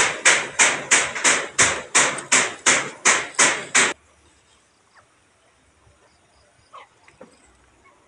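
Hammer blows in a quick, even rhythm, about three strikes a second, stopping suddenly about four seconds in.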